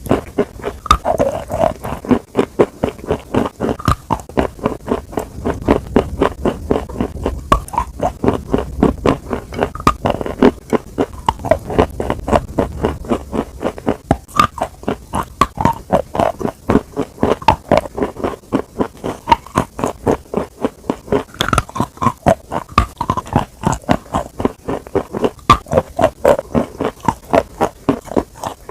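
Close-miked chewing and biting: a quick, steady run of short crunchy chews, a few a second, with wet mouth sounds between them.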